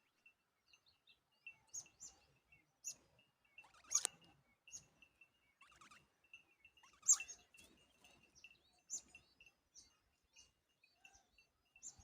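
Short, high chirps at a babbler nest, a dozen or so scattered unevenly, with two louder sharp rustling snaps about 4 and 7 seconds in. A faint steady high tone runs underneath.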